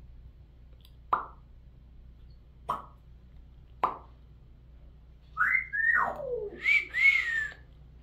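Congo African grey parrot making three short pops a second or so apart, then whistling: a whistle that slides steeply down in pitch, followed by two shorter whistles near the end.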